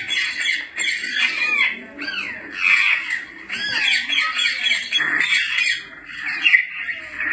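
African grey parrots squawking and whistling in a continuous run of calls, many of them sliding up and down in pitch.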